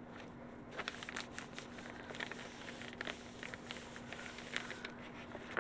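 Hands rubbing and pressing the back of a paper sheet laid on a gel printing plate: soft paper rustling with many faint, quick scratchy ticks, over a faint steady hum.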